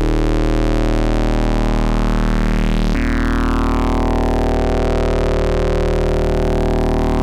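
Modular synthesizer drone from Rossum Trident oscillators wave-spliced and ring-modulated through a Recombination Engine. It holds a low buzzing pitch while its bright upper tones sweep upward. About three seconds in the timbre changes suddenly, and near the end another rising sweep begins.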